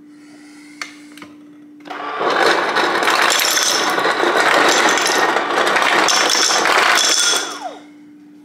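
Refrigerator door ice dispenser set to cubed, running for about five seconds: ice cubes clattering down the chute into a glass. A couple of light clicks come about a second in, before the ice starts.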